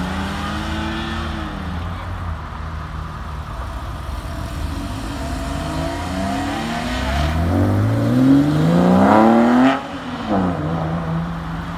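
Porsche 911 flat-six engines pulling away one after another. One revs up hard, its pitch climbing steeply for about three seconds before it cuts off sharply near the end, leaving a steady idling engine note.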